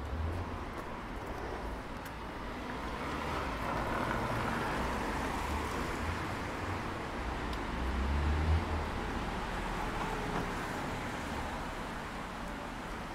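City street traffic: a passing vehicle's engine and tyre noise swells over several seconds and eases off near the end.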